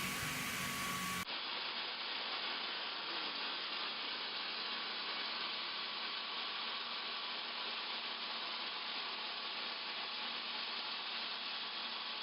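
Sawmill machinery running with a steady, even noise. It changes abruptly about a second in to a duller version of the same steady noise.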